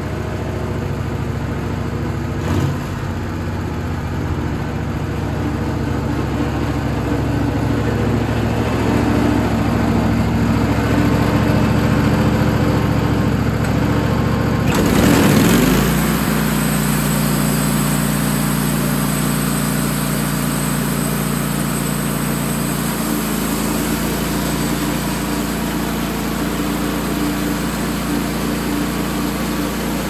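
Wood-Mizer portable bandsaw mill's engine running steadily. About halfway through, its sound changes abruptly with a brief downward glide in pitch, then it settles into a different steady hum.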